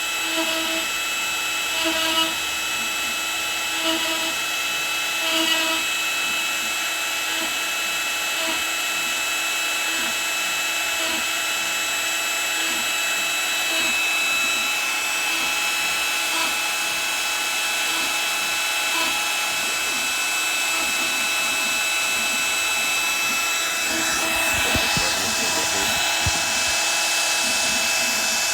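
Shapeoko Pro CNC's router spindle running steadily with a high whine as it carves a wooden plaque, a dust collector running alongside. There are faint repeated blips in the first few seconds and a low rumble near the end as the cut changes.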